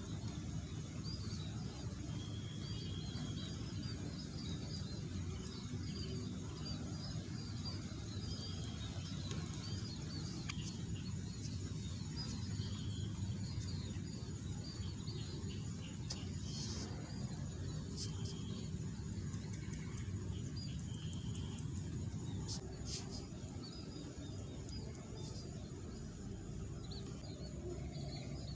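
Birds chirping over and over in short high notes over a steady low rumble, with a few sharp clicks partway through.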